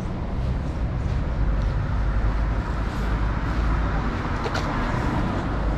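City street traffic noise: a steady wash of road noise with a low rumble from passing cars. There is a short sharp click about three-quarters of the way through.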